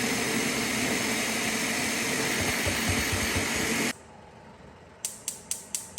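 Countertop blender running at a steady speed, puréeing tomatoes, onions and garlic, then cutting off suddenly near the four-second mark. About a second later, four sharp taps follow in quick succession.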